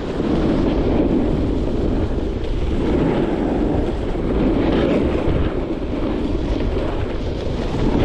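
Wind rushing over the microphone during a fast downhill run on snow, with the steady hiss and scrape of sliding over groomed, packed snow that swells and fades with the turns.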